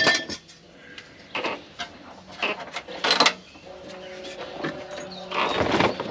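Knocks and clinks of tools and shock absorber parts being handled, the sharpest right at the start and a few more spaced a second or so apart. Near the end a cardboard shock box scrapes and rustles as it is moved.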